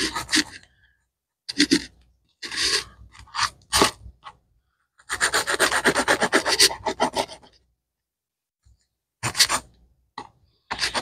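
A knife sawing through the crisp, butter-fried crust of a grilled cheese sandwich: raspy scraping strokes in several short separate bouts, the longest a quick run of strokes about halfway through.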